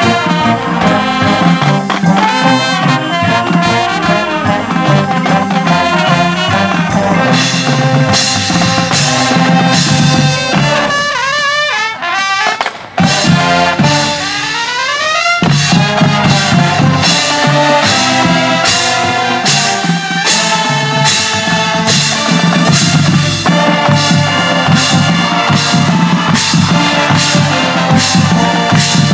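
Marching band playing its field show: brass with drumline and front-ensemble percussion. About halfway through, the low end and drums drop out briefly under sliding, rising notes, then the full band comes back in.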